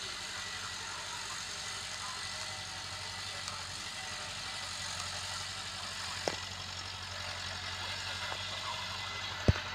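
Massey Ferguson 385 tractor's diesel engine running steadily while it pulls a cultivator across the field. Two brief thumps break in, a small one past the middle and a louder one near the end.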